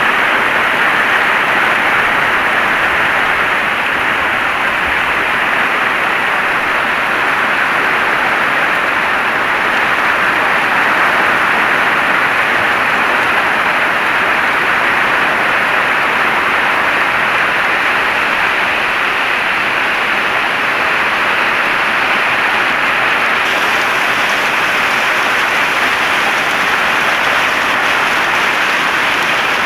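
Heavy rain falling steadily, a dense even hiss that gets slightly brighter about three-quarters of the way through.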